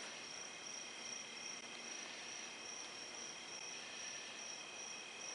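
Quiet background: a faint, steady, high-pitched whine over low hiss, with no tool running.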